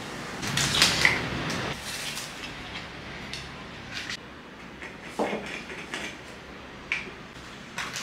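Glass storage jars with metal lids and paper-foil pouches handled on a wooden table: a scratchy rustle about a second in, then several separate light clinks and knocks as jars and pouches are picked up and set down.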